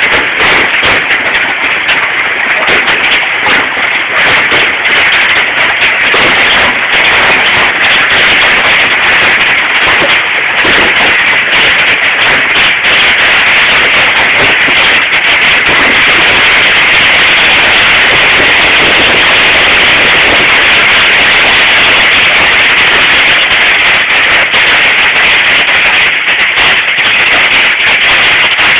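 Hailstones pelting down in a loud, dense, unbroken clatter of countless small impacts.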